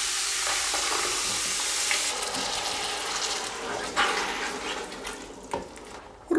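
Vegetables sizzling in hot oil in a large stainless steel pot as tomato purée is poured in; the sizzle dies down after about two seconds. A wooden spoon then stirs the thick mixture, knocking a couple of times against the pot.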